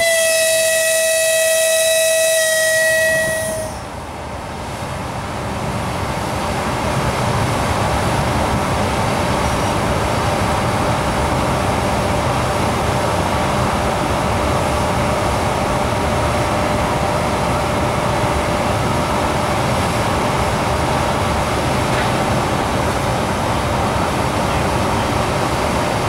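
EP1M electric passenger locomotive sounding its horn in one long steady note for about four seconds. Then comes the steady running noise of the locomotive and its passenger coaches pulling out of the station, which builds over a few seconds and holds, with a faint steady whine underneath.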